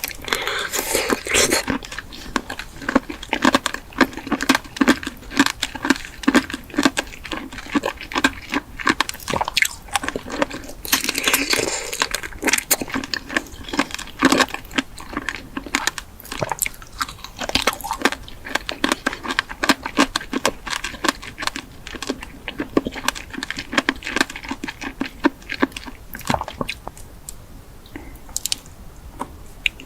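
Close-up chewing and crunching of food: a dense, irregular run of crisp crunches and clicks, thinning out near the end.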